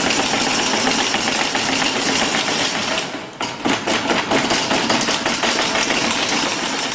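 Kangaroo one-minute butter churn being cranked by hand: a fast, dense mechanical clatter with a brief break about three seconds in.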